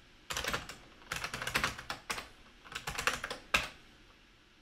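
Computer keyboard being typed on: three quick runs of keystrokes, then a single key press about three and a half seconds in.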